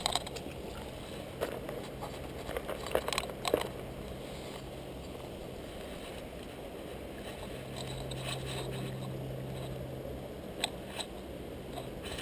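Scattered clicks and light knocks from a spinning rod and reel being handled, bunched in the first few seconds and twice more near the end, over a steady low hum that swells for a couple of seconds past the middle.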